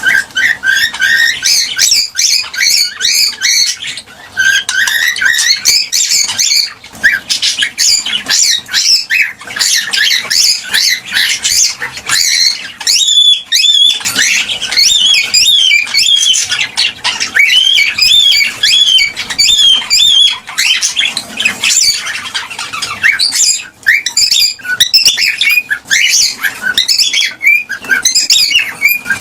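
Cockatiels chirping and calling: a dense, loud run of rapid, overlapping chirps and short whistled glides with hardly a pause.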